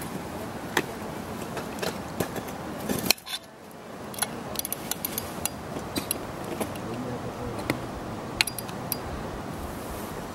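Ice tool picks tapping and scraping on rock as a dry-tooling climber hooks holds: scattered sharp metallic clicks, the loudest about three seconds in.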